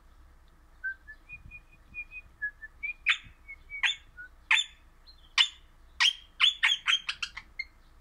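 Crimson rosella calling: a few soft, short whistled notes, then a run of loud, sharp calls that come faster and closer together before stopping shortly before the end.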